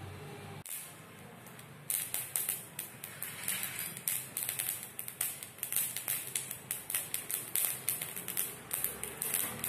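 Mustard seeds crackling and popping in hot oil in a stainless steel kadai, starting about two seconds in as a rapid, uneven crackle. The seeds are spluttering, the stage of the tempering at which the next ingredient goes in.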